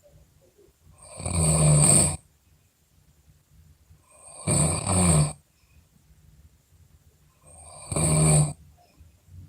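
Loud snoring from a sleeper: three snores about three seconds apart, each lasting about a second, with quiet breathing between.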